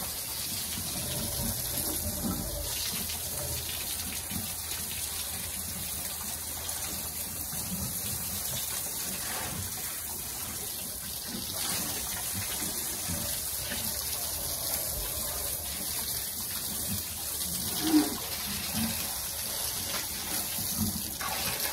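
A garden hose spraying water onto the concrete floor and walls of a pigsty, a steady hiss and splash of spray as the pen is washed out. There is one brief louder knock about three-quarters of the way through.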